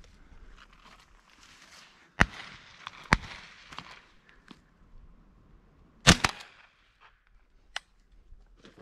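Shotgun shots at flying doves: sharp reports about two and three seconds in, and the loudest one about six seconds in.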